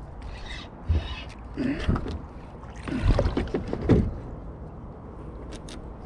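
Handling noise in a plastic Perception kayak: knocks, scrapes and creaks of the hull and fishing rod, with a knock about a second in and the loudest bumps and creaks between three and four seconds in.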